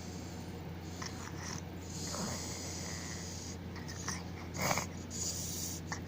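A sleeping baby snoring, with noisy, snorting breaths that come and go. The loudest snort falls a little past halfway.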